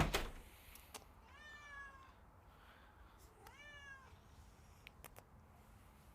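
A sharp knock at the very start, then a domestic cat meowing twice, each meow rising then falling in pitch, about two seconds apart. A few faint clicks follow near the end.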